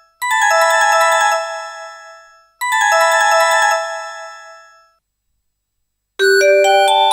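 LG KG110 ringtones played through a Fly DS123 mobile phone's speaker. A short melodic ringtone phrase sounds twice, each time fading away, and after about a second of silence a different ringtone starts near the end with notes stepping upward in pitch.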